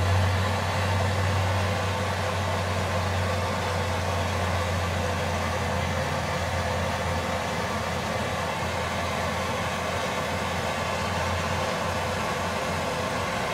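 Handheld blow torch burning steadily with a hiss and a low rumble, its flame held on a 3D printer hot end to melt off hardened PLA plastic. The low rumble eases somewhat in the second half.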